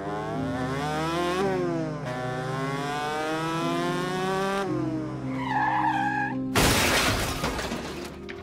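Motorcycle engine revving up through the gears, its pitch climbing in two long sweeps. About five seconds in comes a shrill tyre screech of hard braking, and then a loud crash of the bike hitting the road, with shattering plastic and glass.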